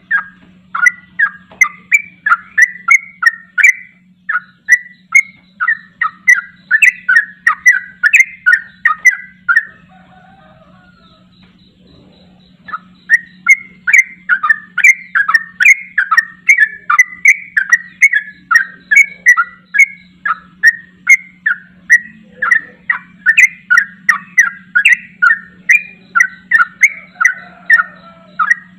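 Yellow-vented bulbul singing a long, rapid run of bubbly chattering notes, about three a second (the 'ropel' song that keepers want). It breaks off for about three seconds near the middle, then starts again and keeps going.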